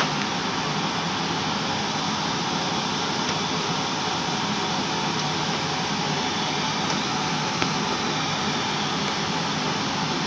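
Steady rushing noise of a large fan or air blower running without change, with one light click about three-quarters of the way through.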